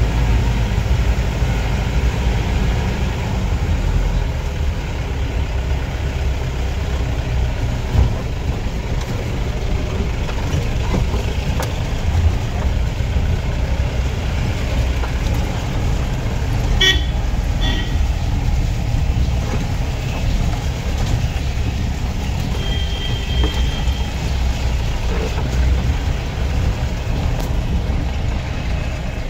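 Jeep engine running and its body jolting as it drives over a rough dirt track, with a brief horn toot about halfway through.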